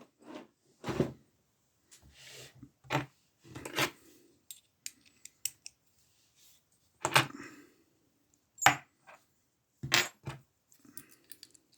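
Metal lockpicking tools and an Abus lever padlock being handled: a series of separate, irregular metallic clinks and knocks, about six louder ones among fainter ticks.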